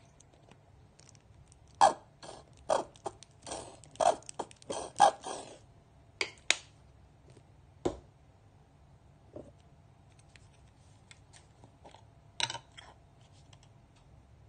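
Clicks and short clatters of kitchen containers being handled, with a plastic screw cap being twisted open. The busiest run comes between about two and six seconds in, with single clicks later and a brief clatter near the end.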